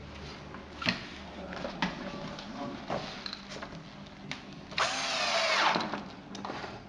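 Cordless drill driving a screw into a caster's mounting plate in one burst of about a second, its motor whine rising and falling. A few sharp clicks come before it.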